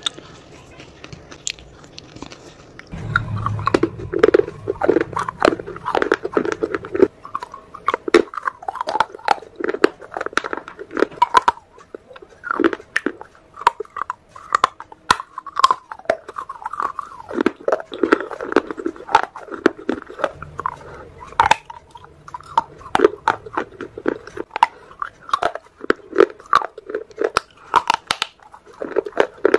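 Close-miked biting and chewing of hard, crunchy pieces of baked clay: a dense run of crisp cracks and crunches. It is softer for the first few seconds, then crunchy to the end.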